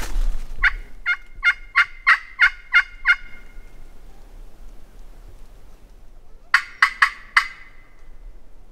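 Hen-turkey yelps on a hunter's turkey call: a run of eight yelps, then after a pause of about three seconds a shorter run of four. The calling is meant to draw an answer from a gobbler heard gobbling down the river.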